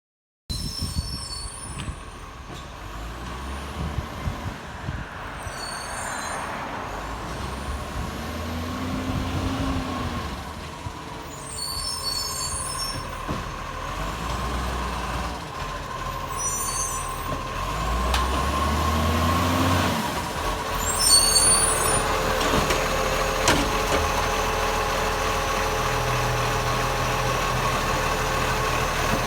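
Acco garbage truck with a leaking exhaust, running loud. Its engine revs up and drops back twice, and short sharp air-brake hisses come about five times.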